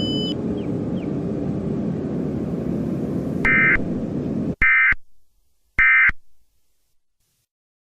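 A steady low rumbling noise that cuts off abruptly, with three short bursts of EAS digital data tones, each about a third of a second long and about a second apart. These are the end-of-message code that closes an Emergency Alert System broadcast.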